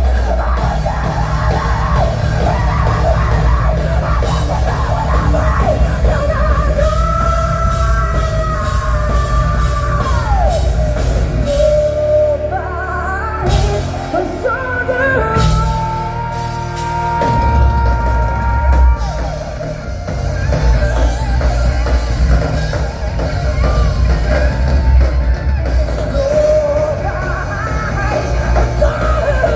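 Live rock band playing loud through a PA: electric guitar, bass guitar and drums with sung vocals, with a heavy, boomy low end.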